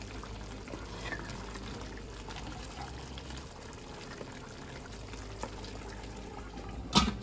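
Mutton simmering over a low flame in its own juices and milk, with a steady soft bubbling and faint ticks. A single sharp knock comes near the end.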